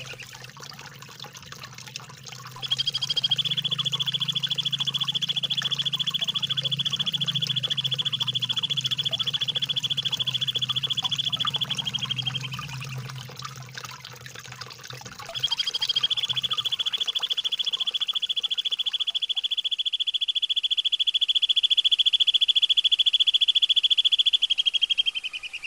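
Two long, rapid rolling bird trills of the 'tembakan ngerol' type used as masteran song for white-rumped shamas. Each lasts about ten seconds at a steady high pitch and sags in pitch at its end. Trickling water and a low hum sit underneath and fade out about two-thirds of the way in.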